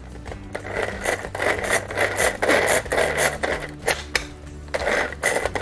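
Pigeon handy pull-cord vegetable chopper worked by hand: the cord is pulled and recoils again and again, each pull a short rattling whir of the gear and blades spinning inside the plastic bowl, about once a second. This is the test after repairing its cord and recoil spring, showing the blades turn again.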